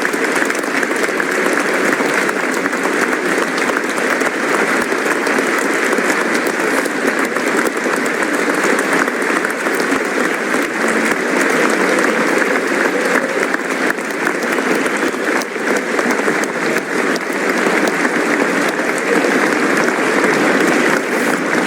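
Game show studio audience applauding: a dense, steady wash of clapping that holds at an even level without letting up.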